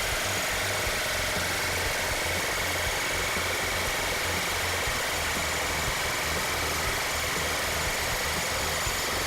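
Jackhammer fitted with a Mega Anchor driving bit, hammering steadily as it drives a fence anchor pile into the ground.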